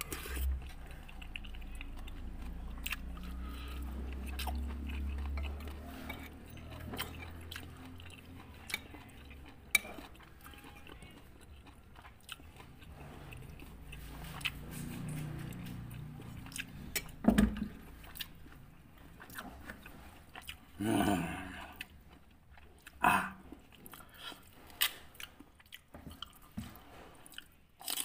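Close-up chewing and swallowing of a mouthful of rice and satay, with scattered sharp clicks of a metal spoon against a ceramic plate.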